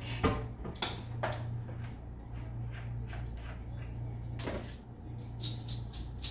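Kitchen handling noises: a few sharp knocks and clunks of things being picked up and set down, the loudest near the start, with a cluster of clicks near the end, over a steady low hum.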